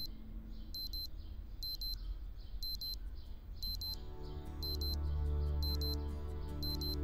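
Electronic alarm clock beeping, short high-pitched beeps repeating about once a second, over soft background music that grows louder about four seconds in.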